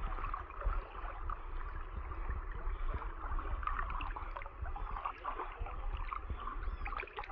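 Floodwater sloshing and gurgling as a boat moves through it, with small splashes over a steady low rumble.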